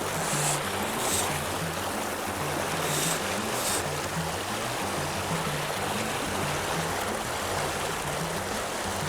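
Background music with a stepping bass line over the steady rush of river water, with a few brief hissing bursts in the first few seconds.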